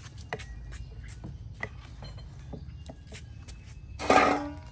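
Scattered light clicks and taps of food preparation: a cleaver working raw chicken drumsticks on a wooden board, with bowls being handled. A brief loud rustling burst comes near the end.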